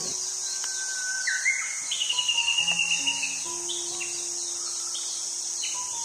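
Birds chirping and whistling, with a rapid high trill about two seconds in, over a steady high-pitched chorus of insects.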